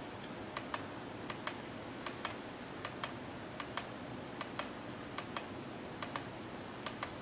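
Steady clock-like ticking: a quick double tick about every three-quarters of a second, counting off a 10-second time delay being inserted into a remote-control macro.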